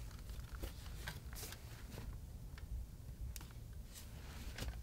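Faint rustling and scattered small clicks and knocks as things are moved about and handled while rummaging in a closet, over a low steady room hum.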